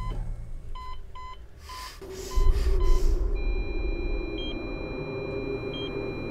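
Electronic heart monitor beeping at pulse rate, the beeps coming faster about a second in. About two and a half seconds in, a loud low rumble sets in, and a steady high electronic tone follows with a slower beep about every second and a half.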